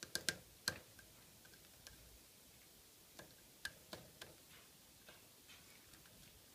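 Great spotted woodpecker pecking at a Siberian pine cone: sharp, irregular taps of its bill, a quick run of three loud ones at the start, another group around the middle and fainter ones near the end.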